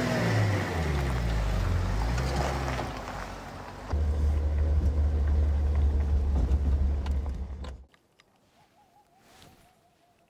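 Jeep pickup engine revving as it pulls away, its pitch rising and falling. Then a steady low rumble of engine and tyres on a dirt road, heard from inside the cab. The sound cuts off about eight seconds in, leaving near quiet.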